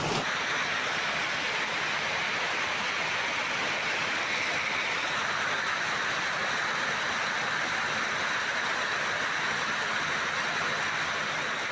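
Heavy rain falling as a steady, even hiss, with no separate drops, hail strikes or thunder standing out.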